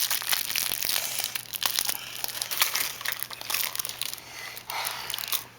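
Crinkly packaging of a gold gum-nugget candy being handled and torn open, a continuous crackling rustle that stops just before the end.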